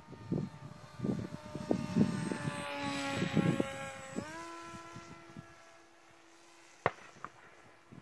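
HobbyKing Bixler 2 electric RC plane's motor and propeller whining on a low pass. The pitch slides down as it goes by, loudest about three seconds in, then jumps up about four seconds in and holds before fading. A single sharp click comes near the end.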